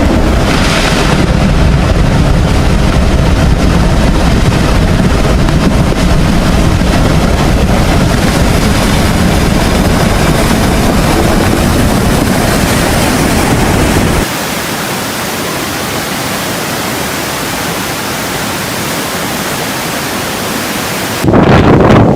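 Storm-force cyclone wind blowing hard against the microphone, a loud steady rush of noise. About fourteen seconds in it cuts suddenly to a quieter, thinner hiss, and near the end a loud rush of wind comes back.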